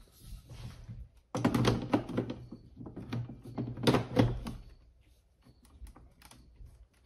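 A quick series of clicks and knocks of hard objects being handled, busiest in the first half, over a steady low hum.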